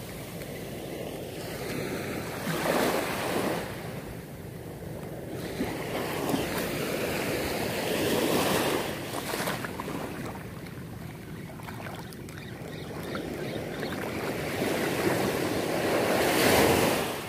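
Surf breaking and washing up a beach in rising and falling surges, three in all, the loudest near the end.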